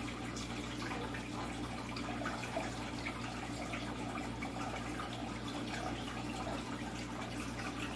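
Aquarium water trickling and bubbling steadily from the tank's filtration, with a low steady hum underneath.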